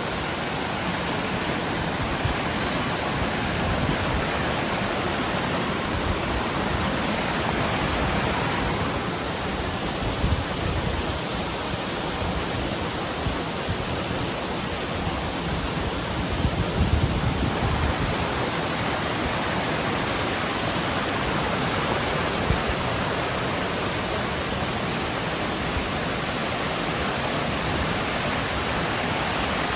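Waterfall rushing: a steady, even wash of falling and splashing water, with a few brief low bumps on the microphone partway through.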